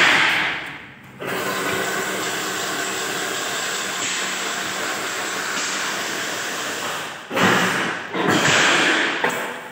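Chain-link fence making machine running, a steady mechanical noise with no clear rhythm. Two louder swells of noise come about seven and eight seconds in.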